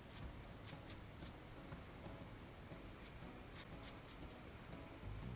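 Faint, soft scratches of a Chinese brush stroking ink onto paper, about one a second, over low room noise. A low hum comes in near the end.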